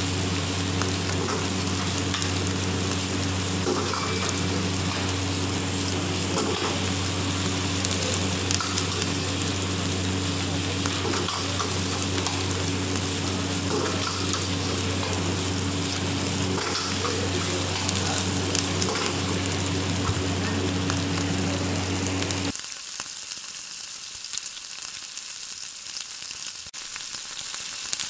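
Szechuan mushrooms stir-frying in a wok over a high gas flame: steady sizzling with clicks and scrapes of the ladle against the wok, over the burner's constant low hum. About 22 seconds in the hum stops and it drops quieter, leaving only a faint hiss.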